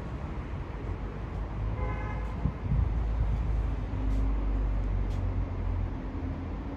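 Low, steady jet rumble from a distant Emirates Airbus A380 on approach, growing a little louder partway through. A brief pitched toot, like a vehicle horn, sounds about two seconds in.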